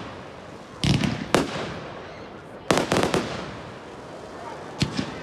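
Aerial firework shells bursting with sharp bangs: two about a second in, a quick cluster near three seconds, and two more near the end.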